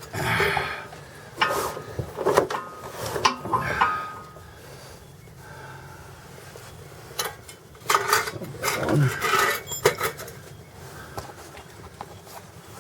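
Metal tools and parts clinking and clattering as they are handled and sorted, some strikes ringing briefly, in two busy spells with a quieter stretch in the middle.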